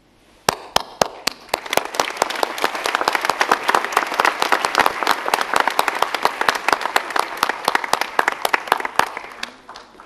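Audience applauding: a few loud single claps about half a second in, quickly building into dense applause that tails off near the end.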